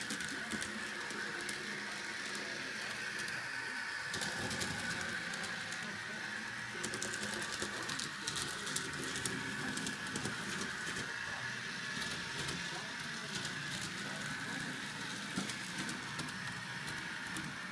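HO scale Peter Witt model streetcar running on its track: a steady high whine from its small electric motor and gearing, with light clicks of the wheels over rail joints and turnouts, thickest about seven to ten seconds in.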